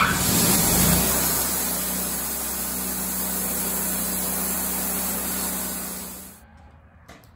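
Wood-Mizer portable bandsaw mill running at high speed, a loud steady machine noise with a low engine tone, opening with a sharp click. It cuts off suddenly about six seconds in.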